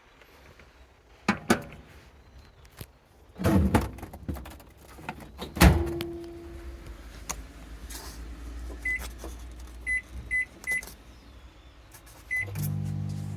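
Clicks and clunks of things being handled, then a series of short high beeps as a microwave oven's buttons are pressed, and the microwave starts up with a steady low hum near the end.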